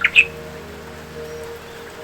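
A songbird ends a phrase with a couple of quick high notes right at the start, then falls silent. Faint steady low tones run underneath.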